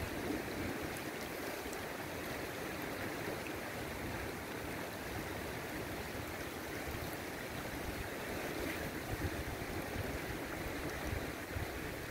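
Shallow, clear river water flowing steadily over a gravel bed, a continuous even rush.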